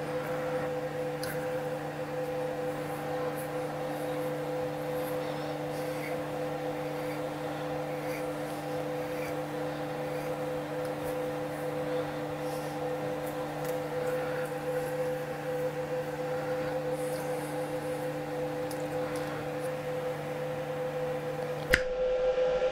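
Steady machine hum made of several fixed tones, with a few faint ticks and clicks over it; it changes abruptly to a louder sound near the end.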